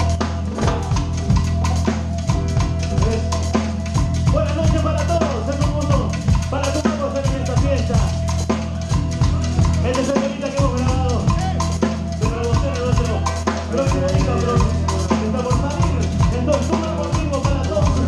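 Live tropical dance band playing, heard in the drummer's monitor mix: a busy drum kit with snare, rimshots and kick over a steady bass line. A lead melody line comes in about four seconds in.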